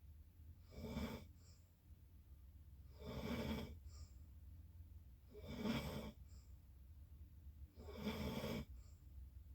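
A person snoring in their sleep: four snores, one about every two and a half seconds, over a steady low hum.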